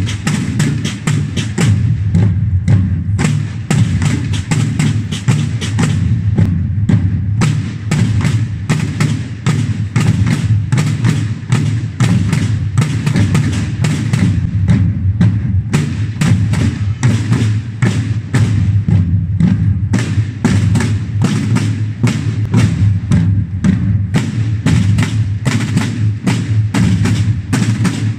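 A procession drum corps of marching drums played with wooden sticks, a dense, continuous beat of many strokes with a booming low drum resonance underneath.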